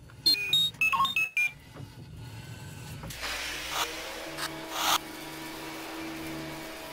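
Cartoon sound effects: a quick run of electronic beeps at changing pitches, then, about three seconds in, a vacuum cleaner motor starts and runs with a steady hum and a hissing rush of suction.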